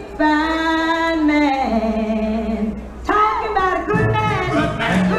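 A singer holding long, drawn-out notes with little or no accompaniment, then a band's bass and beat come in about four seconds in as the tune gets going.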